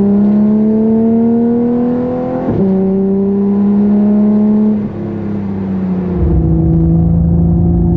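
Porsche 992 GT3's 4.0-litre flat-six, breathing through a Soul Performance Competition exhaust, pulling up through the revs under steady acceleration. Its pitch drops at an upshift about two and a half seconds in and climbs again. Around five seconds in the driver lifts and the engine settles to a steady, lower note.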